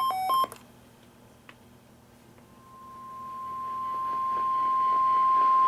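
NOAA Weather Radio's 1050 Hz warning alert tone from a weather radio receiver: one steady pure tone that begins faintly about halfway through and keeps growing louder. It signals that a warning is about to be broadcast. In the first half second a burst of rapid electronic data tones ends.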